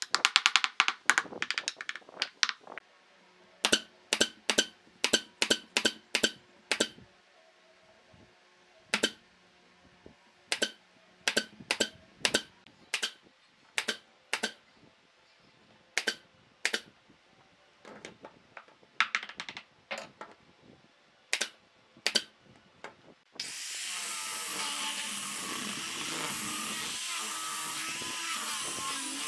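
A wooden mallet knocking wooden filler pieces into the gaps of a log-slice tabletop: clusters of sharp taps, several a second, with short pauses between. About 23 seconds in, an angle grinder with a sanding disc starts up and runs steadily, sanding the wood.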